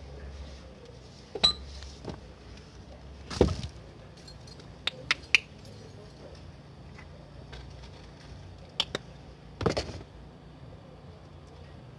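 Scattered clicks, clinks and knocks of small hard objects being handled, about eight in all, the loudest a knock about three and a half seconds in and another near ten seconds in.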